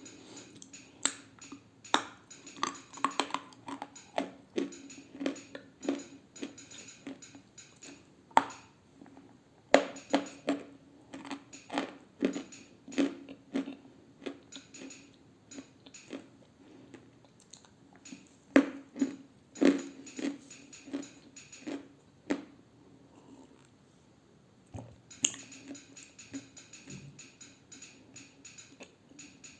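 Close-miked crunching and chewing of dry edible clay, clusters of sharp crunches with short gaps and a quieter pause about three-quarters of the way through.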